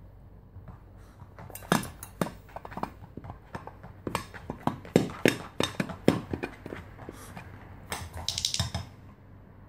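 Irregular knocks and taps from a papillon's paws and claws moving on the lid of a hollow storage ottoman, with a brief scratchy flurry near the end.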